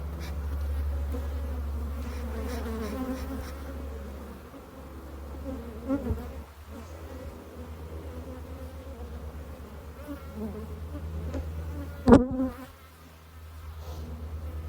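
Many defensive honeybees buzzing around the beekeeper from an open hive, their defensive temper the sign of a colony being requeened for it. A few soft knocks about halfway through and one sharp knock late on.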